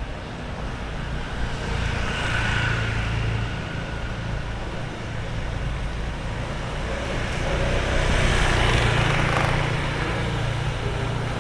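Street traffic: vehicles pass by over a steady low rumble, with one swelling past about two seconds in and a louder one around eight seconds.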